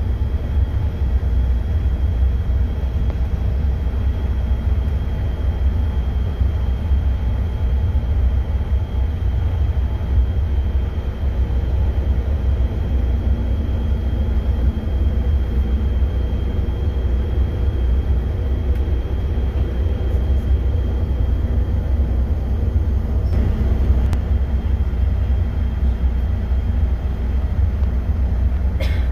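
Airliner cabin noise while taxiing: a steady low rumble from the engines and air system, with a faint steady high whine over it.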